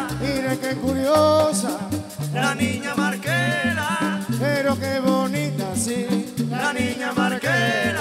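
Panamanian música típica band playing live, in a passage without singing: the button accordion carries an ornamented melody over a stepping bass line and steady percussion.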